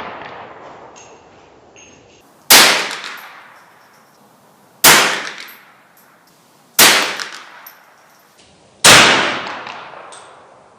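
Four single shots from a Winchester Model 290 semi-automatic .22 Long Rifle, about two seconds apart, each followed by a long fading echo.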